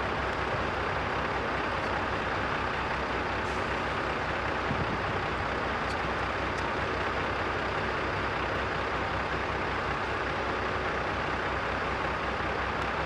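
JCB backhoe loader's diesel engine running steadily at working revs while it digs and loads soil, with a few faint ticks from the machine.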